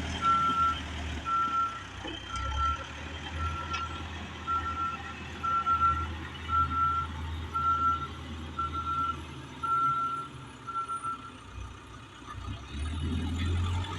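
A heavy machine's reversing alarm beeping about once a second, stopping about 11 seconds in, over the low rumble of a diesel engine that rises and falls with the work.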